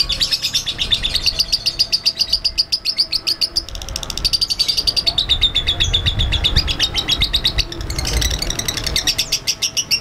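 Lovebird chattering in a long, nearly unbroken run of rapid high chirps, about ten a second, with brief dips about three and a half and eight seconds in. This is the continuous 'konslet' chatter (ngekek) that Indonesian lovebird keepers prize.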